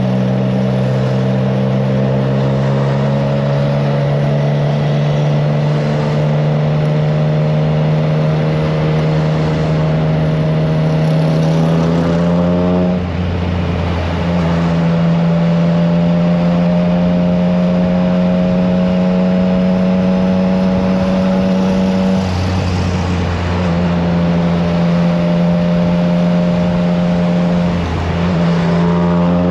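Triumph Trident 660's inline three-cylinder engine running through a FireTong aftermarket exhaust while riding. The engine pitch creeps slowly upward, dips briefly about a third of the way in and again about two-thirds in, and picks up again near the end.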